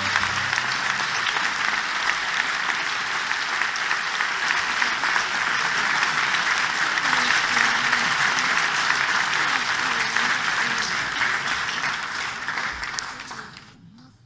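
Large audience applauding, a dense, steady clapping that thins out near the end and then cuts off abruptly.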